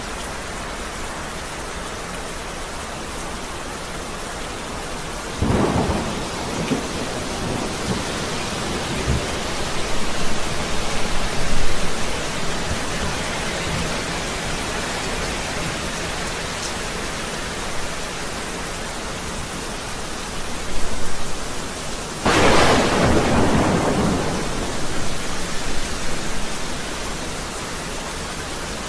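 Steady heavy rain with two claps of thunder: the first about five seconds in, rolling on in waves for several seconds, and a second, sharper crack about two-thirds of the way through that rumbles away.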